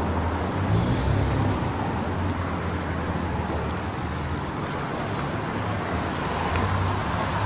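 Steady street background noise with a low traffic hum, sprinkled with faint high clicks.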